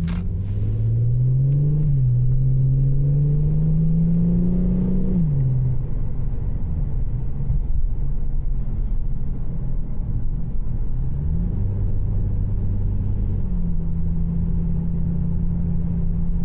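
Infiniti G35x's VQ V6 engine and HKS Hi Power axle-back exhaust heard from inside the cabin while driving. The engine note rises, drops at a gear change, and rises and drops again in the first five seconds, then settles into a steady cruising hum.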